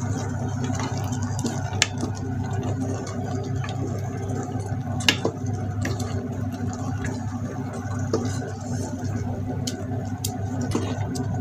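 Wooden spatula stirring yellow rice in coconut milk in a rice cooker pot: a steady wet squelching, with a few sharp knocks of the spatula against the pot.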